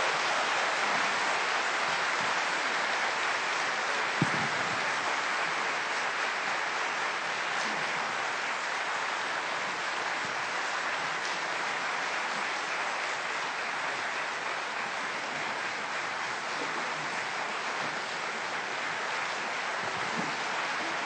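Concert audience applauding steadily, the clapping easing off slightly toward the end, with one sharp knock about four seconds in.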